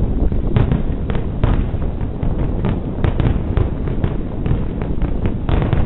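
A rapid barrage of aerial firework shells bursting, many sharp bangs close together over a continuous low rumble.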